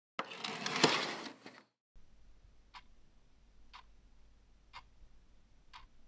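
Curtains swept open along their rail in one swish about a second and a half long, then a clock ticking about once a second over a low steady hum.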